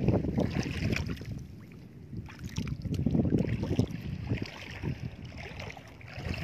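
Shallow seawater sloshing and splashing as someone wades among rocks, with wind buffeting the phone's microphone. It comes in uneven surges, quieter about two seconds in.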